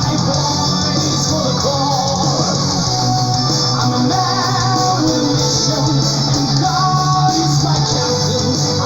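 Recorded neoclassical melodic metal playing: a full band mix of electric guitars and drums with a sung melody line.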